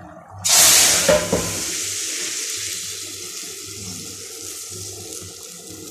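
Hot oil with dark-browned garlic poured into the simmering curry, hissing sharply about half a second in with a couple of knocks of the pan, then settling to a steady sizzle. This is the garlic tempering (bhagar) hitting the watery curry.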